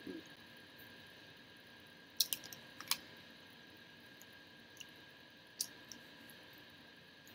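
Plastic fork clicking against a dish while eating: a few sharp clicks about two to three seconds in and another one later, over a steady faint background hum.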